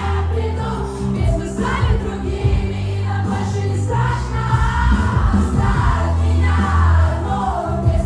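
Women singing into microphones over loud pop music with a heavy, sustained bass line; several voices sing together.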